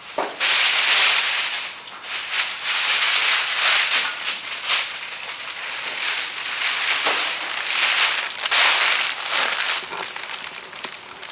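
Large vinyl top sheet and plastic masking sheeting crinkling and rustling in repeated loud bursts as they are lifted, shaken out and moved over a car roof.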